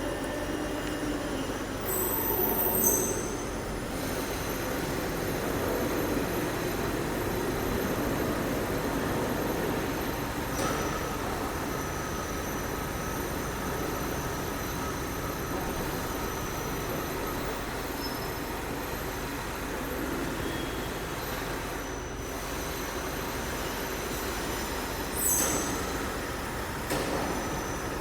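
Steady workshop machinery noise with short, high metallic squeals about two seconds in and again near the end.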